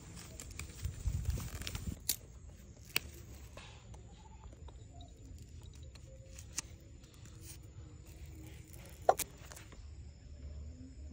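Quiet close-up handling sounds: a snap-off utility knife slicing thin green stems on a wooden log, then an adhesive bandage wrapper being torn open and the bandage peeled. A few sharp clicks sound through it, the loudest about nine seconds in.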